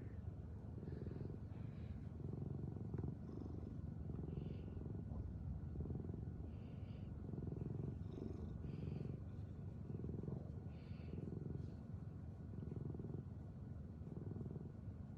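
Steady snoring: low rasping breaths pulsing about once a second, with a short airy hiss on alternate breaths, a full breath cycle about every two seconds.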